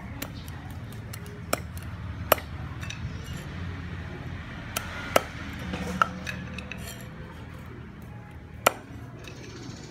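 Kitchen clatter: scattered sharp clinks of kitchenware, about half a dozen, over a low steady hum.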